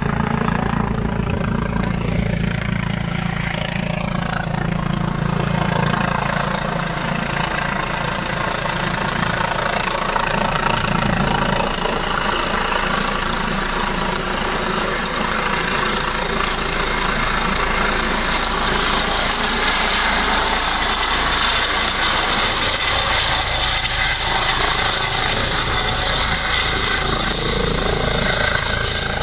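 Helicopter coming in to land, its rotor and engine noise running steadily and growing louder through the second half as it descends close by.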